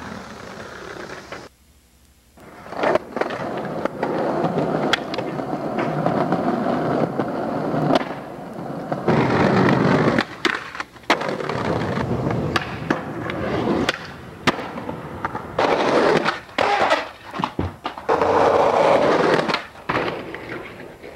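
Skateboards rolling over concrete and pavement, with repeated sharp clacks of boards popping and landing. Briefly quiet about two seconds in.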